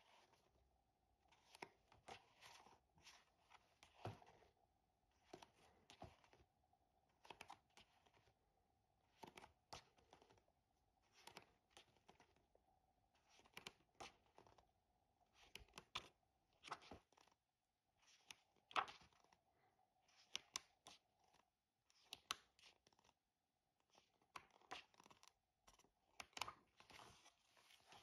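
Faint paper rustles and flicks of a hardcover book's pages being turned by hand, one short soft rustle every second or two.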